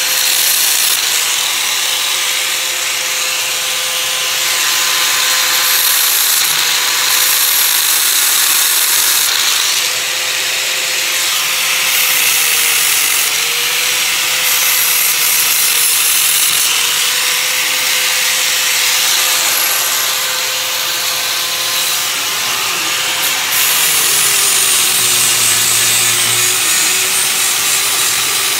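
Handheld power tool with an abrasive attachment running continuously, scuffing paint and rust off the car's engine-bay sheet metal. Its whine dips in pitch briefly a few times and settles lower near the end.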